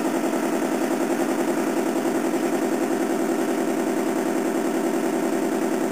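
Simulated towboat diesel engine from a Graupner 2351 sound module, played through the model's speaker. It runs steadily with a fast, even beat while the model is throttled astern.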